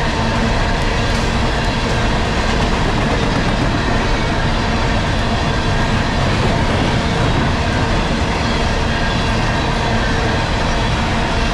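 Empty coal train rolling past: a steady, even rumble of steel wheels on the rails that holds at one level throughout.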